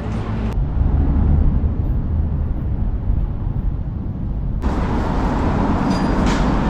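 Street noise dominated by a steady, heavy low rumble of road traffic. The higher sounds drop away about half a second in and return about four and a half seconds in.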